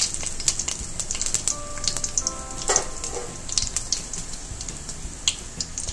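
Whole spices (cinnamon, cloves, cardamom and shahi jeera) sizzling in hot oil in a pressure cooker, with a steady hiss and many small crackling pops.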